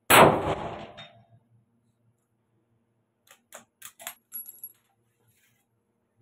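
A single rifle shot from a scoped .303 Lee-Enfield bolt-action, a sharp crack with about a second of echo. About three seconds later, a quick run of metallic clicks and clacks as the bolt is worked and the spent case comes out.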